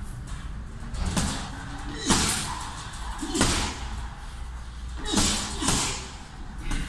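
Punches and kicks landing on a hanging heavy punching bag: about six sharp thuds at uneven intervals.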